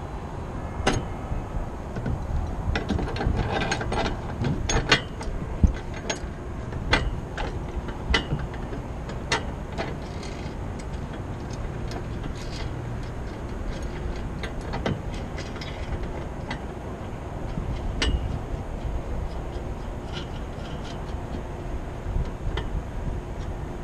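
A hand ratchet wrench clicking in short quick runs, with sharp metal clinks from tightening the antenna's mounting hardware on the tower pipe. The strikes are loudest a few seconds in, over a steady low rumble.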